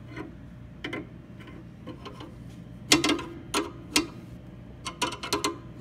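Steel open-end wrenches clinking against each other and the brass check-valve fittings as they are shifted and worked on the nuts during tightening: sharp metallic clicks at irregular intervals, the loudest about three seconds in and a quick run of them near the end.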